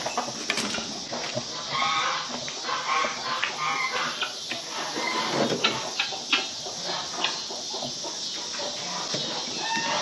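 Chickens clucking, with a few sharp knocks scattered through.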